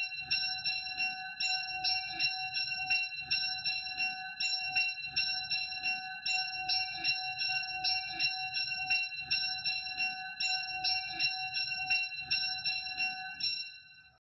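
Church bells ringing in a rapid peal of overlapping strikes, about three a second, fading out near the end.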